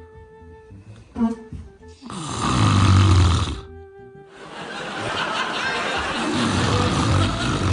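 Loud, exaggerated comic snoring: two long rasping snores, the first about two seconds in and the second building from about halfway to the end. Short musical notes play before and between them.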